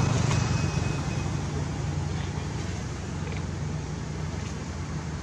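Steady outdoor background noise: a low rumble with an even hiss, like distant engine or traffic noise, easing a little after the first second, with a few faint ticks.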